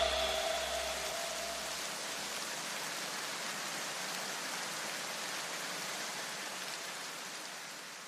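The background music breaks down to a steady, rain-like hiss of noise; low bass notes left over from the beat die away in the first two seconds, and the hiss fades out near the end.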